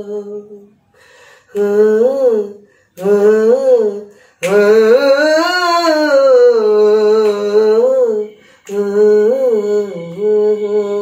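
A man singing unaccompanied, wordless held notes with quick ornamental turns, in several phrases broken by short pauses; the longest phrase, in the middle, rises and falls in pitch.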